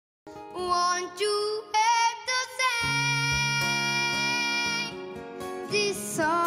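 A child singing in a high voice with instrumental backing. The song comes in a moment after a brief silence and holds one long note through the middle.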